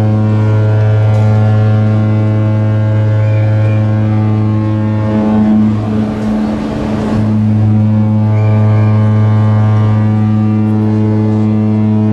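Cruise ship's deep typhon horn sounding a long, steady blast as the ship leaves port, briefly blurred by a rushing noise around the middle.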